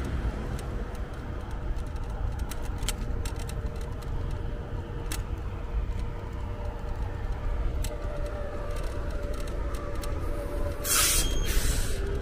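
Ride on an electric scooter: a steady low rumble with a faint steady whine and scattered small clicks. Near the end come two short, loud hisses.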